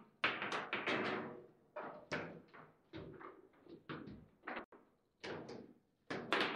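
Table football (foosball) in play: the ball struck by the plastic player figures and knocking against the table walls, with rods clacking. It comes as a rapid, irregular series of sharp knocks, loudest in a quick cluster in the first second and again near the end.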